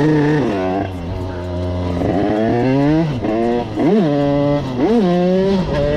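Two-stroke engine of a Derbi dirt bike with an 80cc Airsal kit, revving hard while the rider holds a wheelie. The revs sag at first and climb again, then there are two quick rev blips about a second apart near the end.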